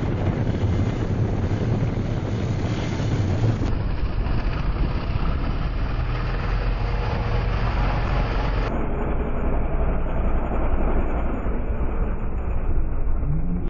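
Quad bike (ATV) engine running under load as it climbs a sand slope, with a short rising rev near the end as the front wheels lift into a wheelie.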